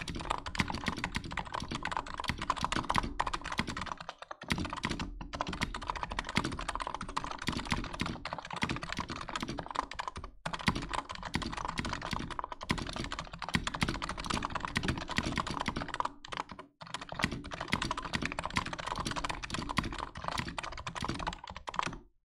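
NiZ Plum x87 keyboard with light 35 g rubber-dome switches being typed on fast and continuously, a dense stream of soft, chalky and buttery keystrokes. The typing breaks off briefly three times and stops just before the end.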